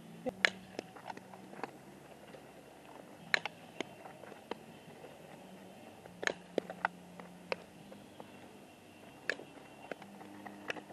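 Sharp clicks and knocks from softball infield practice, such as the ball popping into a leather glove, coming in small clusters about every three seconds over a faint low hum.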